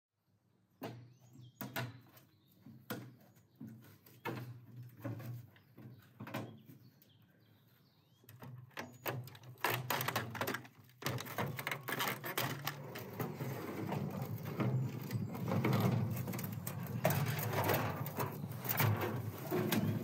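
An old washing machine being taken apart by hand: sheet-metal panels and plastic parts knocking and clattering. At first there are separate knocks, then from about nine seconds a dense, continuous rattling and banging as the casing is pulled apart and the drum is worked loose.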